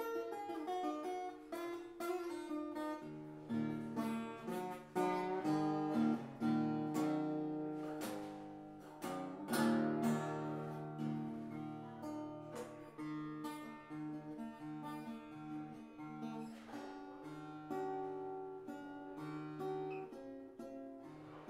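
Improvised acoustic guitar music on a koa-wood guitar, single notes picked and chords strummed, in a loose bluesy melody.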